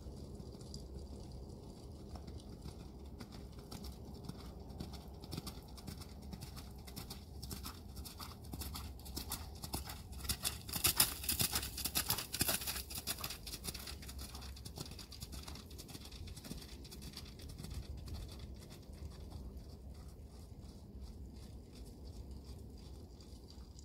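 Hoofbeats of a trotting horse on wet, slushy arena footing: a steady run of soft thuds that is loudest as the horse passes close, about halfway through.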